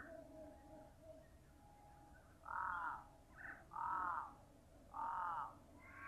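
A crow cawing three times, each caw about half a second long and a little over a second apart, with a few fainter short calls in between.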